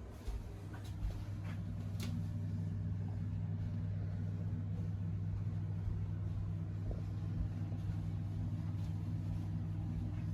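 A steady low motor hum that comes on and settles within the first couple of seconds, with a few light clicks near the start.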